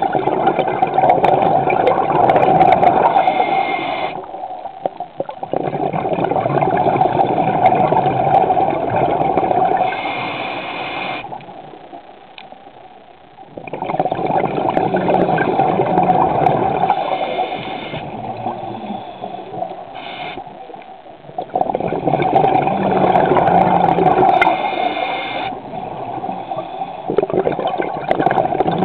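Scuba diver's breathing heard underwater: long gurgling bubble bursts from the regulator, several seconds each, with short quieter pauses between breaths about every six to seven seconds.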